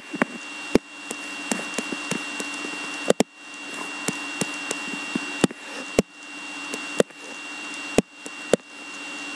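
A steady electrical buzzing hum with a noise hiss, broken by sharp clicks that come every second or so at uneven intervals.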